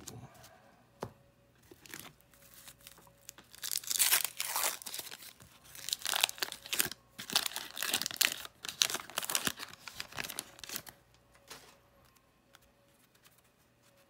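Wrapper of a 1991 Fleer basketball card pack being torn open and crinkled by hand: a run of sharp crackling tears and rustles starting a few seconds in and lasting about seven seconds, loudest at the first tear.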